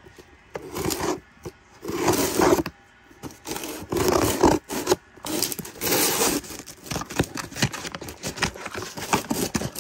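Packaging being cut and torn open with scissors: four rough scrapes in the first half, then a run of quick clicks and rattles as it is pulled apart.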